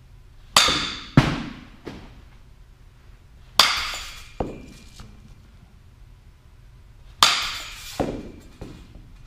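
A bat striking pitched softballs three times, about three and a half seconds apart, each sharp crack followed within a second by a duller thud and a lighter tap.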